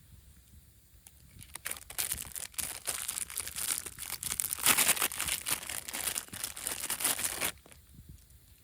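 Crinkling and rustling of crinkly material being handled, starting about a second and a half in. It stops suddenly near the end.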